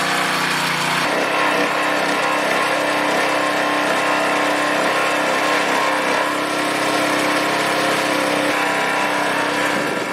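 Single-cylinder 6.5 hp gasoline engine (168F-1) of a gas pressure washer running steadily just after starting. About a second in its note shifts as the choke lever is moved over, and then it runs evenly.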